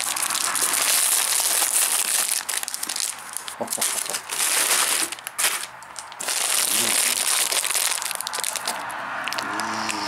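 Plastic and foil sweet wrappers crinkling and rustling as hands rummage through a box of wrapped candies, with a short lull a little past halfway.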